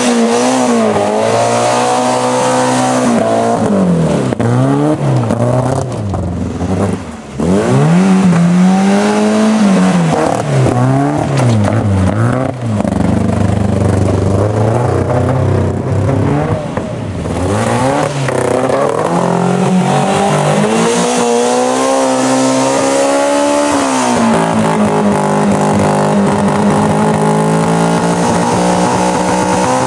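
Peugeot 309's engine revving hard again and again as the car is thrashed around, the pitch rising and falling every second or two. In the second half it climbs more slowly and holds higher revs, dropping once and then running steadily high.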